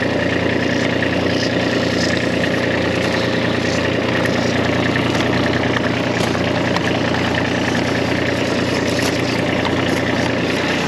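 Ditch Witch SK750 mini skid steer's engine running steadily, with an even, unchanging note.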